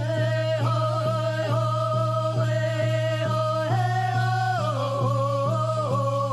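A song playing: a voice holds long sung notes that slide from pitch to pitch, over a steady beat.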